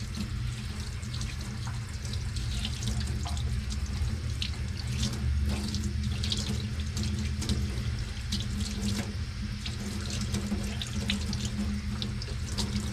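Tap water running steadily into a stainless steel sink and splashing over a goose breast as hands rub and rinse it, with a low steady hum underneath.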